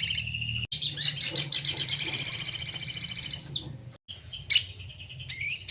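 Sogon bird singing: a long, rapid, buzzy trill lasting a few seconds, then a brief pause with a few short notes, and quick repeated sweeping notes near the end.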